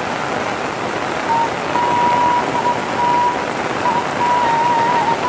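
Heavy rain falling steadily, a dense even hiss of rain on a paved road and leafy plants. A thin, steady high tone comes and goes on top of it from about a second in.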